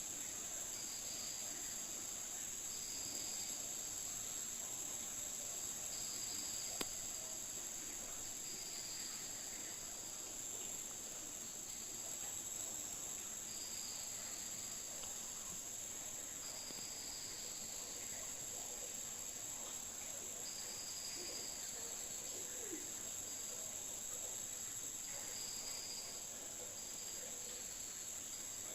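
Crickets chirring steadily in a high, even drone, with another insect's short chirps repeating every second or two. A single sharp click about seven seconds in.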